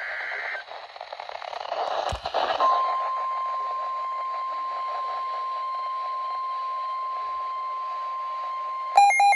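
Weather radio alert through a receiver's speaker: after a moment of hiss and a click, the steady 1050 Hz NOAA warning alert tone sounds for about six seconds, signalling that a new warning follows. About nine seconds in, a rapid, regular electronic beeping cuts in over it.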